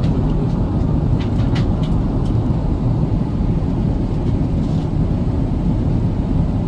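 Steady low cabin rumble of an Airbus A380-861 in flight: its Engine Alliance GP7200 engines and the airflow past the fuselage, heard from a window seat beside the wing. A few faint ticks come one to two seconds in.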